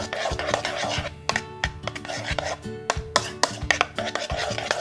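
A spoon stirring sticky glue and shaving cream in a bowl, knocking against the bowl in a quick irregular run of clicks. Background music plays underneath.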